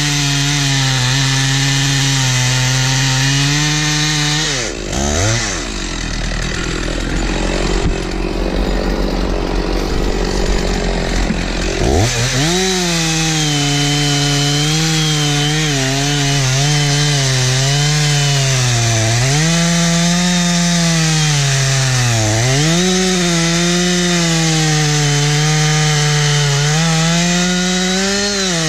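Stihl 046 two-stroke chainsaw cutting at full throttle, its pitch sagging and recovering as the chain loads in the wood. About five seconds in the revs drop low for several seconds, then it is throttled back up and keeps cutting, with the pitch dipping twice more under load.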